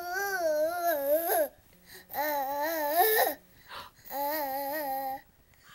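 Toddler babbling in three long sing-song vocalisations, each lasting a little over a second, the pitch wavering up and down within each.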